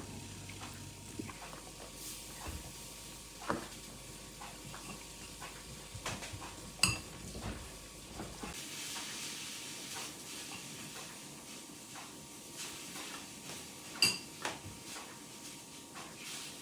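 Kitchen clatter of dishes and utensils: scattered light clicks and knocks, with two sharp ringing metallic clinks, about seven seconds in and again near fourteen seconds.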